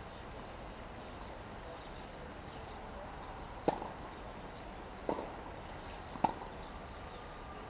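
Tennis ball being played on a hard court: three sharp pops of ball on racket strings and court, about a second and a half and then a second apart, the last one the loudest.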